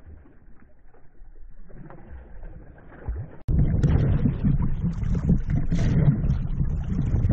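Water splashing and rushing along the side of a moving inflatable boat, with wind buffeting the microphone. It starts suddenly about three and a half seconds in, after a quiet stretch.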